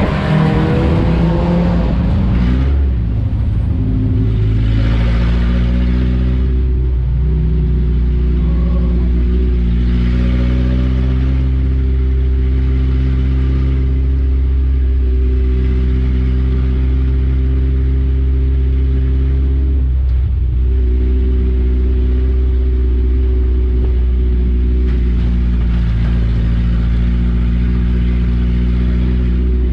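A four-cylinder dirt-track race car's engine heard from inside the cockpit. Its pitch shifts as the car slows over the first few seconds, then it runs steadily at low speed, with a brief dip about two-thirds of the way through.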